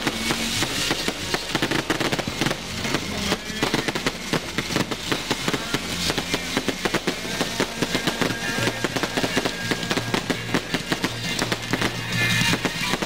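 Aerial fireworks going off in a dense, rapid run of crackles and bangs, with music playing along with them.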